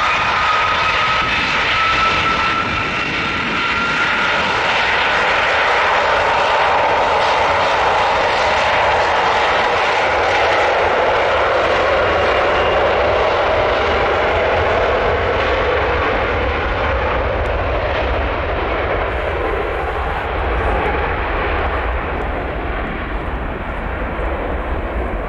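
Airbus A330 twin-jet engines running at high power as the airliner rolls down the runway: a loud, steady jet roar with a fan whine that rises slightly in pitch over the first few seconds. Past the middle the roar drops in pitch and a deep low rumble grows as the aircraft moves away.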